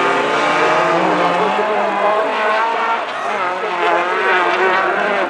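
Rallycross race car engines at full throttle, the engine notes rising and falling as the cars accelerate, lift and change gear.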